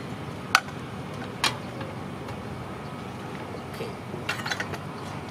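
Cookware being handled: two sharp clanks about a second apart as a frying pan and its lid are moved and the pan is set on a portable gas stove, then a few softer taps, over a steady low background rumble.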